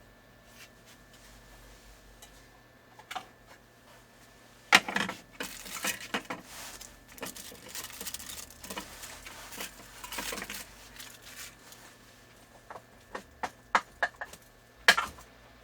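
Small parts and tools being handled on a workbench: scattered light clicks and taps with some rustling, the sharpest knocks about five seconds in and near the end.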